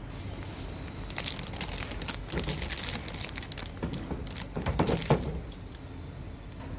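Clear plastic bag crinkling and crackling as hands untie its knotted neck and pull it open, loudest a little before the end of the handling, then it dies down about five seconds in.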